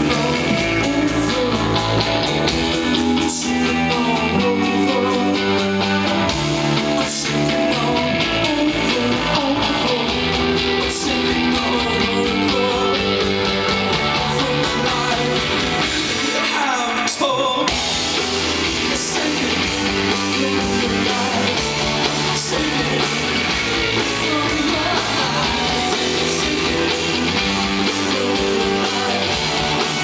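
Live rock band playing: electric guitars, bass and drums with singing, and a cymbal crash every few seconds. A little past halfway the bass and drums drop out for about a second while a guitar note glides in pitch, then the full band comes back in.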